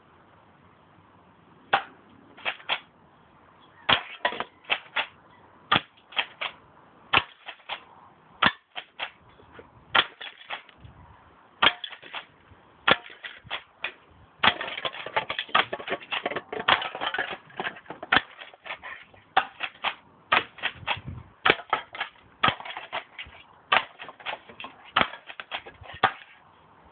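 A manually loaded JT3A 6 mm BB airsoft shotgun being worked and fired again and again at a drink can: a run of sharp clacks and clicks, often two or three close together, with a busier patch of rattling clicks about halfway through.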